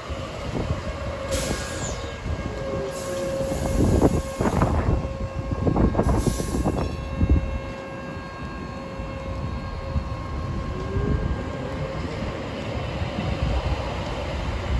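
Sheffield Supertram Siemens-Duewag articulated tram running past on the track: a steady electric whine over the rumble of wheels on rail, with a few louder rushes of noise in the first seven seconds.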